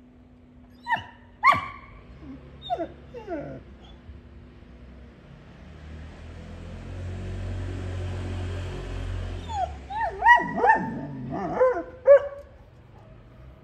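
Young Kangal dogs barking and whining: two sharp barks about a second in, a few whining yelps, then a burst of yelping barks and whines near the end.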